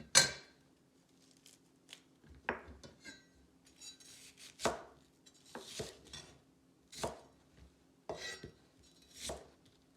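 Kitchen knife cutting half an onion on a cutting board: separate slicing strokes, each ending in a knock of the blade on the board, about seven in all and spaced one to two seconds apart.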